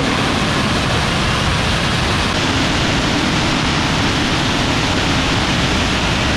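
Large old engine running steadily, a loud even rushing noise with no clear firing beat.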